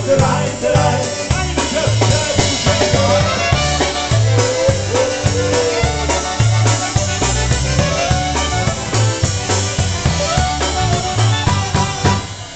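Live polka band playing an instrumental passage: a Chemnitzer-style button concertina carries the melody over bass and drums keeping a steady polka beat.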